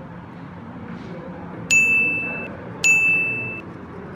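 Two identical bright dings about a second apart, each struck sharply on one high note and fading within a second, over low room noise.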